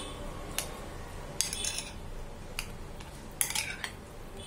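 A metal spoon stirring cooked rice and curd in a glass bowl, clinking against the glass several times as it scrapes through the mixture.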